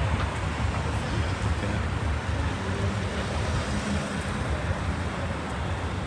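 Road traffic passing on a city street: a steady rumbling hiss.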